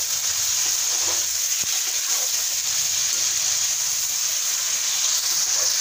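Chicken pieces frying in hot oil in an aluminium karahi, a steady sizzle, while a slotted spatula stirs them.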